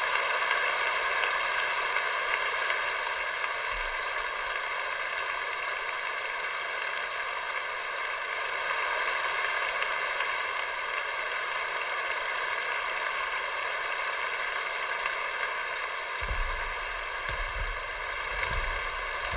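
Steady static-like hiss, an even noise with no tune or voice in it. Low rumbling bumps join in near the end.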